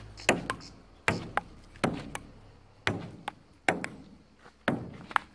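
Table tennis rally: the plastic ball clicking sharply off the paddles and the concrete table, about a dozen clicks, roughly two a second.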